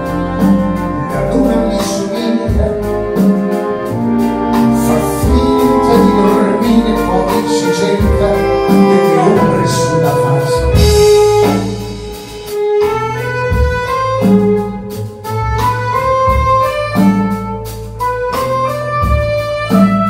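Small band playing live: a saxophone melody over double bass, piano and drum kit, with the drums keeping a steady beat in the second half.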